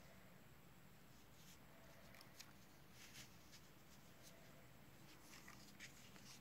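Near silence with faint handling noise: soft scratchy rustles and a few light clicks as a steel-bracelet wristwatch on its cushion pillow is turned in the hand, bunched in the middle and again near the end.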